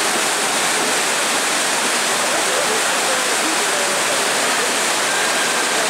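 Whitewater rapids of a slalom course rushing steadily, an even unbroken roar of churning water.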